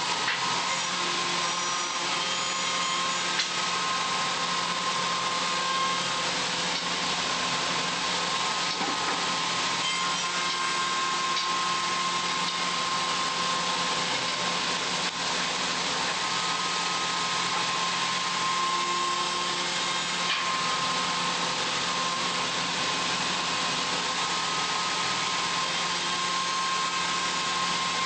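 CNC woodworking machine running steadily: a constant noisy machine sound with a held whine and a low hum, starting suddenly at the beginning.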